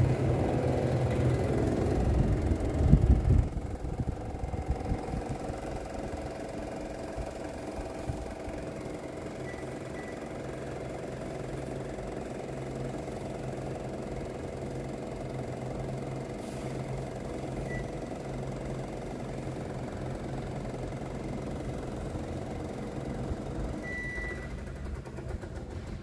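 Panasonic CS-S10HKP split air conditioner's indoor blower running noisily, with a loud rough rumble for the first few seconds that settles into a steady hum; the blower sticks and had to be spun by hand to start. The unit gives short high beeps as it takes remote commands, two close together, one more, then a longer beep near the end, after which the hum changes.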